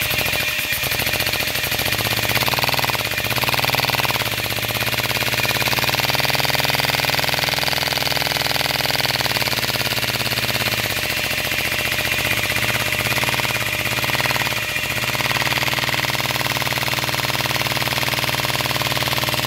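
Lego single-cylinder overhead-valve vacuum engine running on suction, a rapid, even chugging beat like a small motor. Its speed dips and recovers a few times, over a steady hiss of rushing air.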